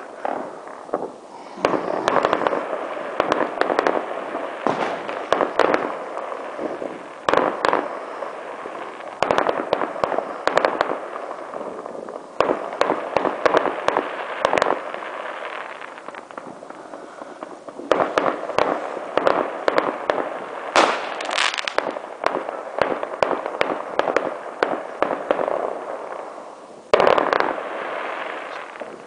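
Many fireworks going off together: overlapping bangs and crackling that come in waves, with a quieter lull a little past halfway and a fresh burst of loud bangs near the end.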